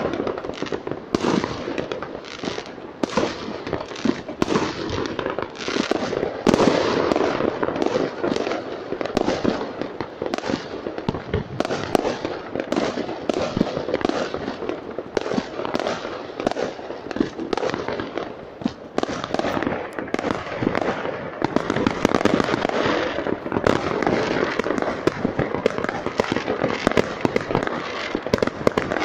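Many fireworks going off at once: a dense, continuous stream of bangs, pops and crackle from aerial shells and firecrackers, with no break.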